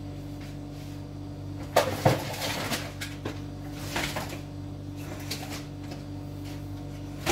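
Knocks and rattles of objects being handled, the loudest two close together about two seconds in, then several lighter ones spread through, over a steady low hum.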